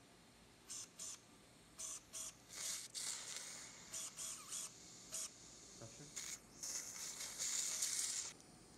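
Surgical suction tip hissing in short, irregular bursts as it draws blood and air from the femoral canal, some bursts carrying a faint whistle, ending in a longer hiss that cuts off sharply near the end.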